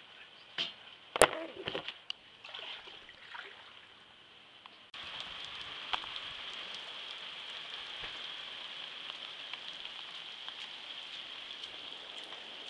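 A few knocks and clicks, the loudest a sharp knock about a second in. About five seconds in, the steady hiss of falling rain cuts in suddenly and carries on.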